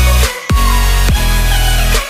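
Loud electronic dance music with a heavy bass line and downward-sweeping synth drops.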